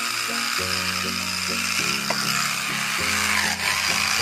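Homemade angle grinder built from PVC pipe, running with a steady high whirring hiss from its motor and spinning cutting disc.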